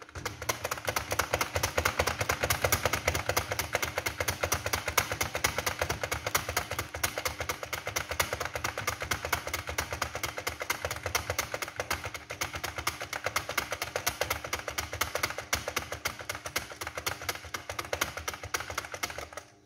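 Computer keyboard being typed on fast and steadily: one key and the space bar pressed over and over in a quick, even run of clicks.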